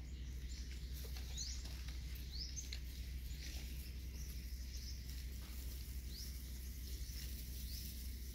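Young puppies eating from styrofoam food boxes: faint patter and small clicks of eating and shuffling, with short, high, rising chirps every second or two over a steady low rumble.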